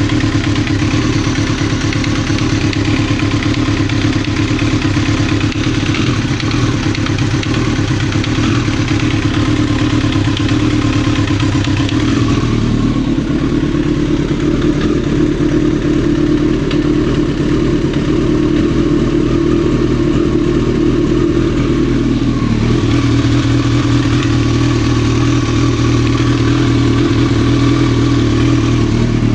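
1995 Kawasaki ZX-9R inline-four engine running with a clattering engine knock. The engine's note changes about 13 seconds in and changes back near 23 seconds.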